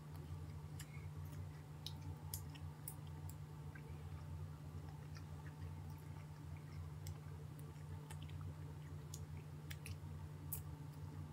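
Mouths chewing gummy sour candy straps: faint wet clicks and smacks at irregular moments over a steady low hum.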